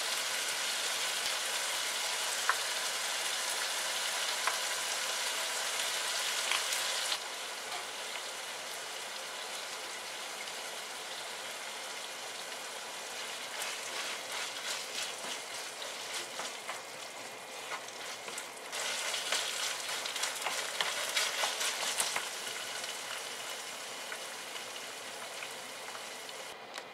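Minced meat sizzling steadily in a nonstick frying pan. A wooden spatula stirs and scrapes through it in irregular strokes, busiest through the middle of the stretch.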